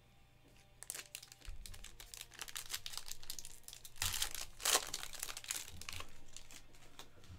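Plastic foil trading-card pack wrapper crinkling and being torn open, an irregular run of crackles that is loudest a little past halfway.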